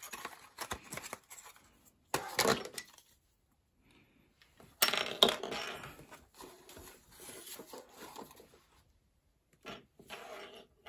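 Cardboard packaging and small hard plastic parts being handled: rustling and scraping with sharp clicks as a magnetic swivel clip is worked out of its cardboard insert and its pieces are set down on a wooden floor. The loudest moment is a sharp click about five seconds in, followed by a second of scraping.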